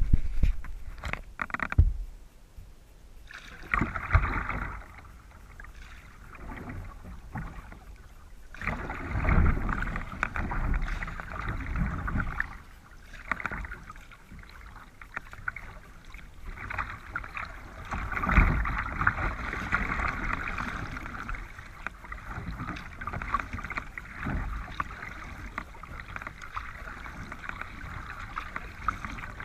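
Kayak paddle strokes dipping and splashing water beside the hull, coming in uneven spells with short lulls between. Now and then there is a low thump on the microphone.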